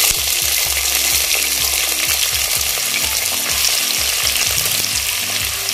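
Freshly added sliced onions sizzling in hot mustard oil in a kadai, a steady frying hiss, with a spatula stirring and scraping now and then.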